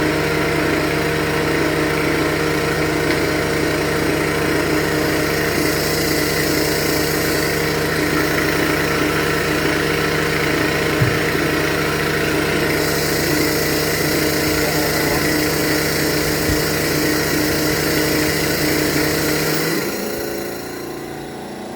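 Edwards xDS35iE dry scroll vacuum pump running on freshly replaced tip seals: a steady hum with a hiss of air. It gets quieter about 20 seconds in. The owner, who had feared failed bearings, judges this running sound okay as the new seals wear in.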